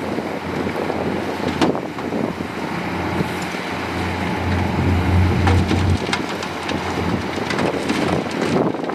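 Heavy diesel engine of a dump truck or bulldozer running with a steady low hum, louder around the middle, with scattered clicks and knocks over it, more of them in the second half.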